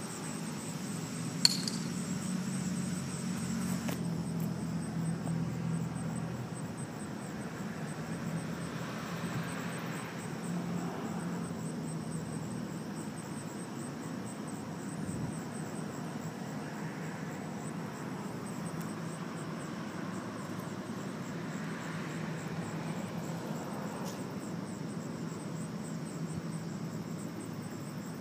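Steady low hum of outdoor background noise, with one sharp clink about a second and a half in.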